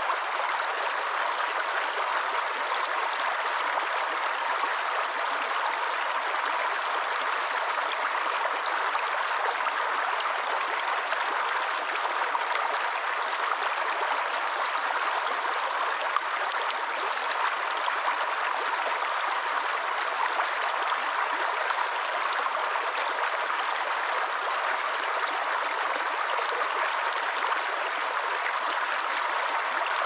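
Small rocky forest stream running over stones in a shallow cascade, a steady rush of water with no breaks.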